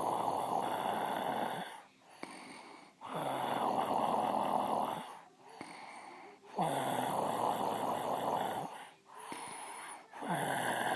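A woman snoring in her sleep: long snores of about two seconds each, about every three and a half seconds, with quieter breaths in between. Three full snores, and a fourth starts near the end.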